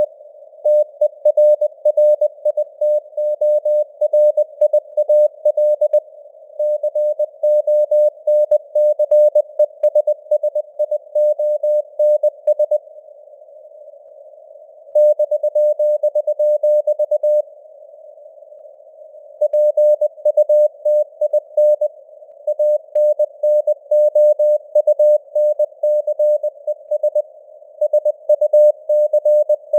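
Morse code at 20 words per minute: a steady mid-pitched tone keyed on and off in rapid dots and dashes, over a narrow band of simulated radio hiss. The tone stops twice for about two seconds near the middle, leaving only the hiss.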